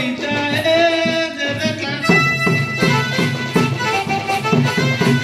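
Folk music with a reedy, accordion-like melody and drums. A voice sings over it for the first couple of seconds, and from about two seconds in the drums keep a quick, steady beat.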